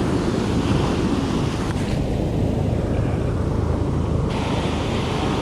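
Ocean surf breaking on the beach, with wind buffeting the microphone as a steady low rumble. A small click comes about two seconds in.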